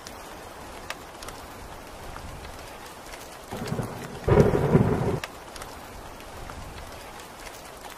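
Steady rain falling, with a thunderclap about halfway through: a short rumble builds into a loud crack that rolls for about a second and then cuts off suddenly.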